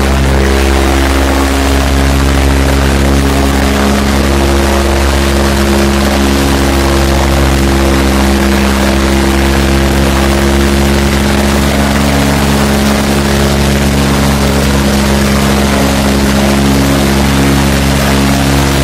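Farmtrac 60 tractor's diesel engine running hard under load, loud and steady at an even pitch.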